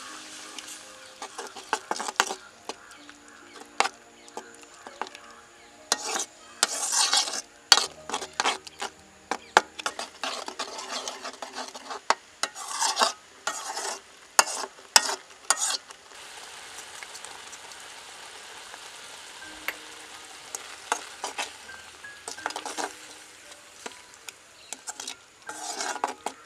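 Metal spoon stirring and scraping a sizzling tomato-chili sauce in an iron pot, with clinks and scrapes of the spoon against the pot over a steady sizzle. The stirring comes in bursts, busiest a few seconds in and again around the middle.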